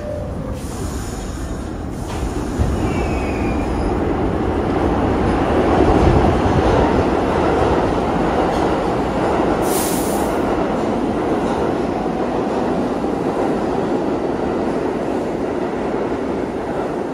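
R62A subway train pulling out of the station: the rumble of its motors and wheels builds over the first few seconds and then holds steady. A short, sharp hiss comes about ten seconds in.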